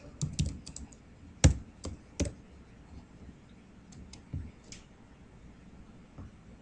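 Computer keyboard typing: a quick run of keystrokes, then three louder single key taps over the next second. A few fainter clicks follow near the middle and again near the end, including a mouse click.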